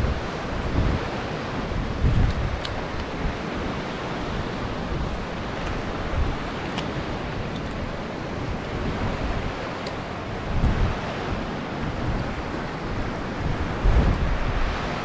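Ocean surf washing steadily on a beach, with wind buffeting the microphone in low rumbling gusts now and then.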